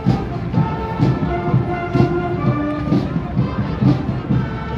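High school marching band playing a tune: brass melody with held notes over a steady drum beat, a strong stroke about once a second.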